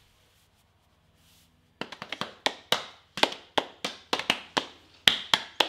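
Hands slapping and patting a belly through a T-shirt: a quick run of sharp slaps, about four a second, starting about two seconds in after near silence.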